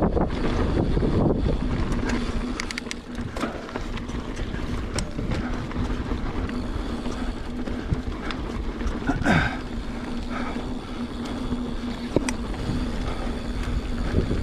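Mountain bike riding over a dirt trail: wind rushing over the microphone and tyres rolling on dirt, with scattered clicks and knocks from the bike over the rough ground. It is loudest for the first couple of seconds, then eases off.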